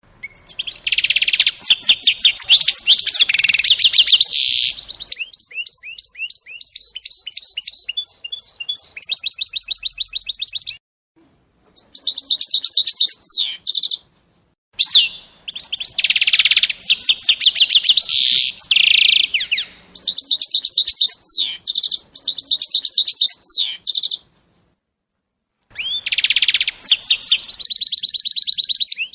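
A small songbird singing long phrases of rapid trills and clear whistled notes, broken by a few short pauses.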